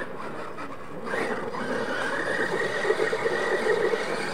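Radio-controlled scale monster truck's motor and drivetrain whining at high revs as it spins donuts on loose dirt, its tyres spraying dirt. The whine rises in level about a second in and then holds steady.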